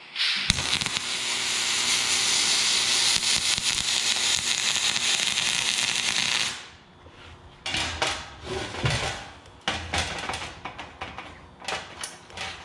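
Aluminum MIG welding with a spool gun: the arc crackles and sizzles steadily for about six seconds, then cuts off suddenly. Scattered irregular knocks and clatter follow.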